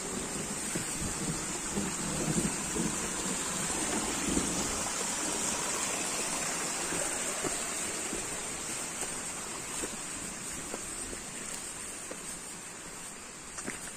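Steady outdoor rushing noise, water- or wind-like, with a constant high hiss above it, a little louder in the first few seconds; a few faint ticks near the end.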